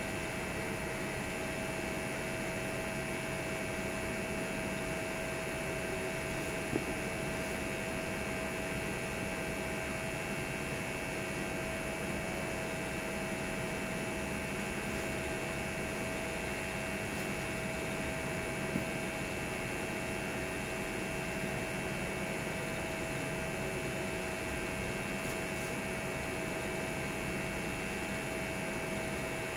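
TIG welding arc on a sanitary pipe flange: a steady hiss over a constant hum with a few steady tones, and two faint clicks, one about a quarter of the way in and one past the middle.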